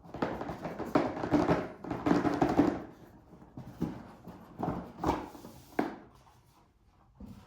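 A cardboard board-game box being opened and handled: rustling and sliding for about three seconds, then a handful of light knocks as its contents are moved.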